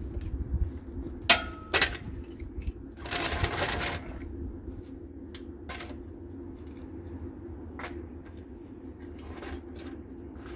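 Metal tools and parts clinking and clanking as they are handled, with two sharp ringing clanks about a second and a half in and a short rattle around three seconds, over a steady low hum.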